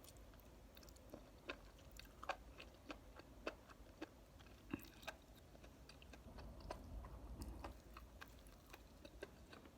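Faint chewing and mouth noises of a person eating, with scattered soft clicks.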